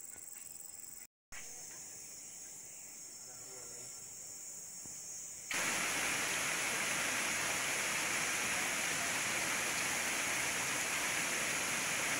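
Insects trilling at a high steady pitch over a faint background, broken by a brief dropout. About five and a half seconds in, the sound cuts abruptly to the loud, steady rush of a fast-flowing stream.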